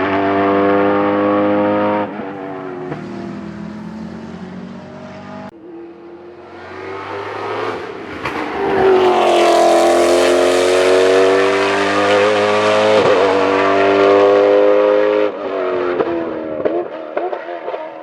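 Ford GT GT1 race car's V8 engine at speed on track: a loud running note, then a rising note building into a loud pass with pitch shifts. The pass cuts off suddenly about three-quarters in, then fades.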